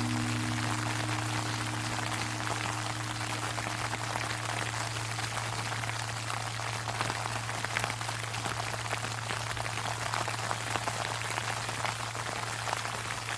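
Sleet pattering steadily on an umbrella, over the long low hum of a large Japanese temple bell (bonshō) dying away after a strike; the bell's higher overtones fade out within the first five or six seconds, leaving only the deep hum.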